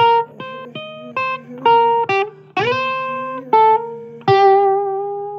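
Blues guitar playing a run of single plucked notes, some slid up into pitch and left to ring, over a steady low hum.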